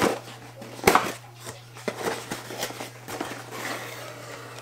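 Cardboard mailer box handled and its lid pulled open: light scraping and tapping of cardboard, with a sharp knock about a second in.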